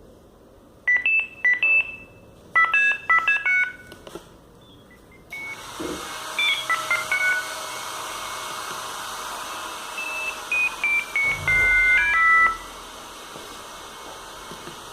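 Sagem MW 3022 mobile phone playing its built-in monophonic ringtones: short runs of pure electronic beeping notes at changing pitches, in several bursts with pauses between. A steady hiss comes in about five seconds in.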